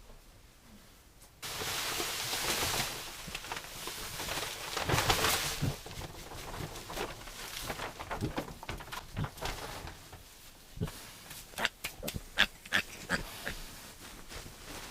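Newborn piglets and their farrowing sow: a sudden stretch of rustling, scuffling noise starting about a second and a half in, then a run of short, sharp squeaks near the end.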